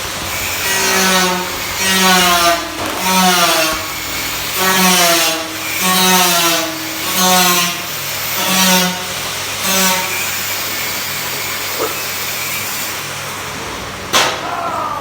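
Hand saw cutting in about ten steady back-and-forth strokes, each stroke giving a squeal that slides down in pitch; the sawing stops about ten seconds in. A single sharp knock comes near the end, over a steady background noise.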